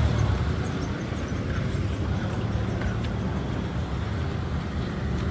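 Road traffic: a steady low rumble of passing cars.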